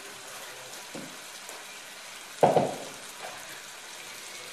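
Meat and onions sizzling faintly in a clay tajine over a gas flame, with one short, louder knock a little past halfway through.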